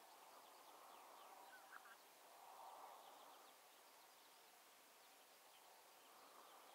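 Faint calling of a distant flock of geese, a soft, wavering chorus of honks that swells and fades, with a few clearer short calls about two seconds in.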